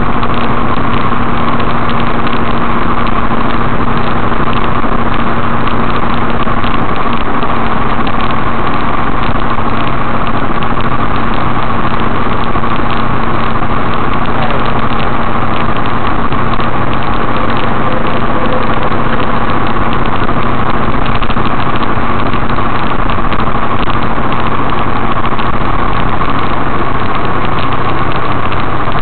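Steady drone of a truck's engine and road noise inside the cab on the highway, picked up by a dashcam microphone.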